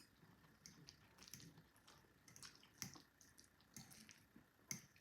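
Faint eating sounds: soft chewing and wet mouth smacks, with small clicks, the louder ones about three seconds in and near the end.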